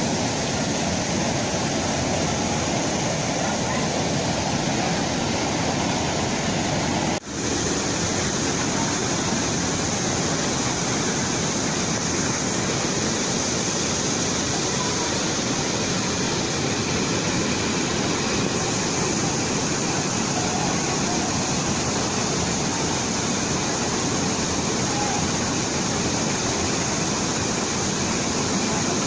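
Waterfall: a steady rush of falling water, broken for an instant about seven seconds in.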